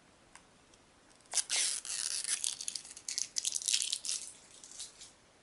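Plastic wrapping being torn and crinkled off a Blu-ray case: a run of crackling tears starting about a second and a half in and lasting about three and a half seconds.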